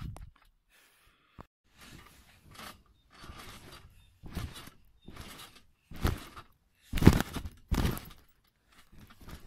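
Someone bouncing on a trampoline: a run of thumps and rustles as feet land on the mat and the netted frame shakes, about one a second, the loudest few coming in the second half.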